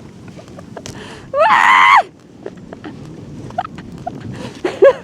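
A person's excited scream or whoop, held for well over half a second about a second in, then short rising yelps near the end, over a low rumble of wind and riding noise.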